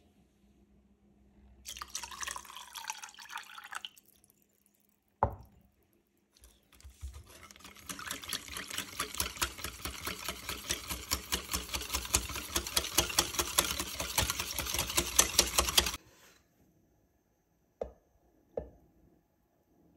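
Milk pouring into a stainless steel saucepan of chocolate mixture, then a single knock. A wire whisk then beats rapidly against the metal pan in a fast run of strokes that grows louder and stops abruptly, followed by two light taps near the end.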